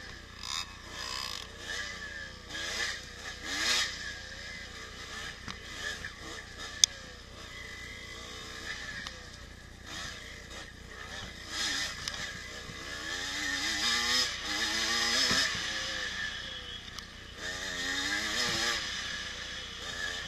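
1984 Yamaha IT200's two-stroke single-cylinder engine revving up and down again and again as the bike is ridden along a dirt trail. A sharp click about seven seconds in.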